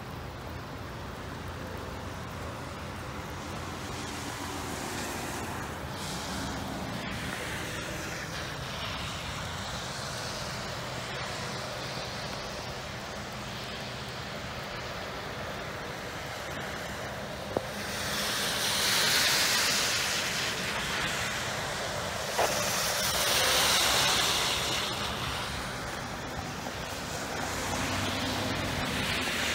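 Two vehicles pass one after the other on a wet road about two-thirds of the way in, their tyres hissing as each swells and fades over a few seconds. Underneath is a steady background hiss of outdoor rain and wind.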